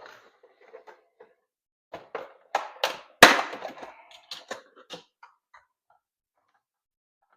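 Unboxing a plastic toy helicopter: a run of knocks, clicks and rustles from handling the toy and its packaging, the loudest knock about three seconds in.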